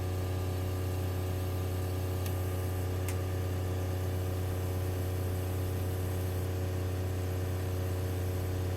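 Fuel injector flow-test bench running, Bosch injectors spraying at 5 bar: a steady, even hum with higher steady tones above it, and two faint clicks about two and three seconds in.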